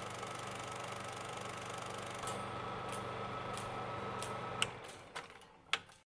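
Vintage film-projector sound effect: a steady mechanical clatter with a low hum and a thin steady tone, broken by a few sharp pops. The tone stops about four and a half seconds in, and the running sound dies away over the last second and a half to silence.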